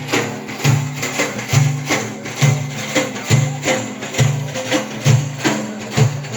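Instrumental backing for Iraqi ataba singing: a steady beat of deep drum strokes with jingling, tambourine-like percussion, about one stroke a second.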